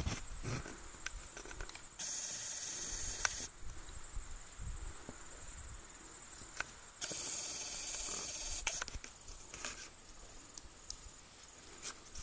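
Faint open-air ambience: a high buzzing hiss comes twice, each time for about a second and a half, among scattered light clicks and rustles.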